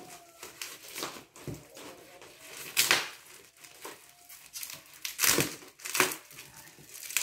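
Clear plastic wrap and packing tape on a shipping box crinkling and tearing as they are cut with a blade and pulled back, in irregular bursts, loudest about three seconds in and twice more near the end.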